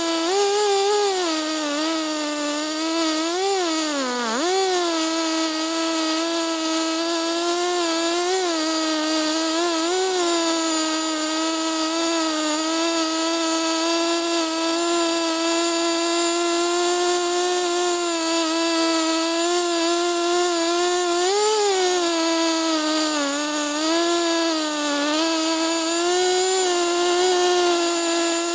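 Two-stroke chainsaw engine running at high revs through a cut, the pitch steady but dipping under load several times, most deeply about four seconds in.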